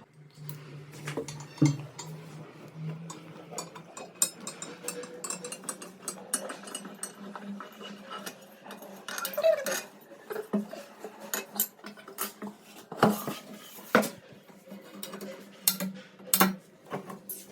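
Irregular metallic clinks and knocks of tools and tap fittings being handled during plumbing work, with a few sharper knocks near the end.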